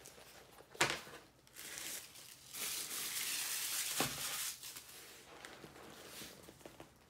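A new Sprayground backpack being handled and turned over in the hands. Its material rustles and crinkles, with a sharp knock about a second in and a thump near the middle, and the longest, loudest rustle comes through the middle.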